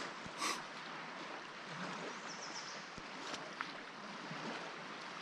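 Small lake waves lapping against the inflatable tubes of an Alpacka Mule packraft as it drifts in a light swell: a steady watery wash with a brief louder splash about half a second in.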